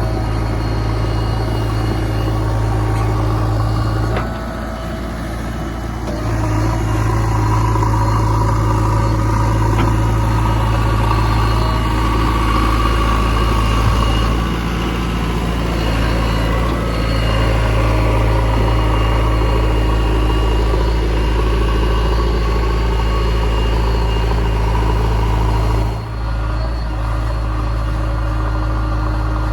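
Diesel engine of a JCB 3DX backhoe loader running steadily at work. Its sound dips for a couple of seconds about four seconds in and again briefly near the end.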